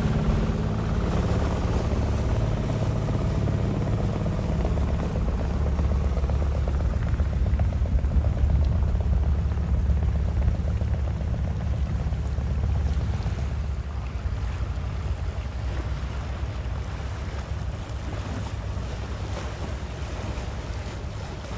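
Sailing yacht's inboard diesel engine running as the boat motors along, a steady low rumble. It swells around eight to ten seconds in and eases off after about thirteen seconds.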